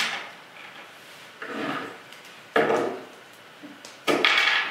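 Plastic Transformers action figure being handled and stood on a hard tabletop: three short bursts of plastic parts scraping and knocking, about a second apart, the last the loudest.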